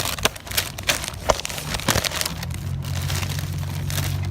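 Plastic food packaging crinkling and crackling in irregular bursts as it is handled. A low steady hum joins a little over two seconds in.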